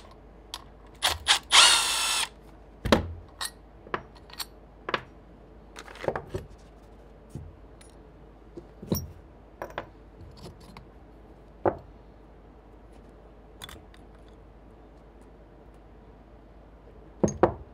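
Disassembly of an ARB air compressor's piston and cylinder: a short burst from a power driver near the start, then scattered clicks and knocks of tools and metal parts being handled.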